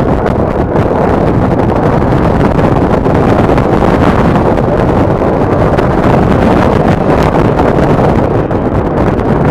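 Steady wind noise buffeting the camera microphone, mixed with the running engine of an off-road motorbike being ridden.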